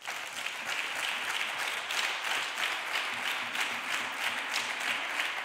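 Senators applauding in the Senate chamber. A steady round of many hands clapping that starts suddenly.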